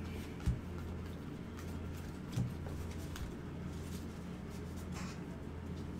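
Faint handling of trading cards: cards slid and set down on a table, with two soft knocks about half a second and two and a half seconds in, over a steady low hum.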